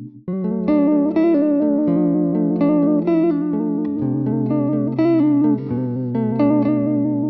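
Guitar played through a Cratere effect preset: a phrase of picked notes over a low held note that drops in pitch twice, the notes ringing on at the end.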